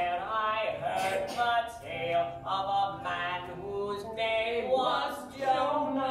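A group of voices singing a song together, with held notes.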